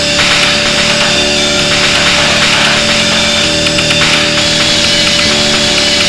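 Doom drone noise music: a loud, dense wall of harsh noise over one steady held tone, with lower drone tones that shift every second or two.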